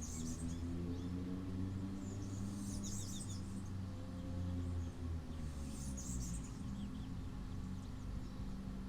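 Small birds chirping in three short bursts of high twittering over a steady low hum.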